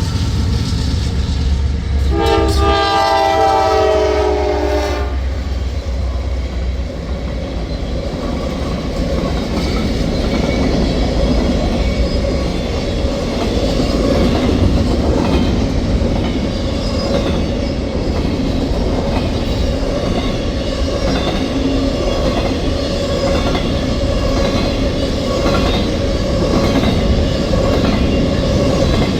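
A train passing close by: the locomotive sounds its air horn, a chord of several tones held for about three seconds starting about two seconds in, over the low rumble of the diesel engines. Then the railcars roll past with steady wheel noise and clickety-clack over the rail joints.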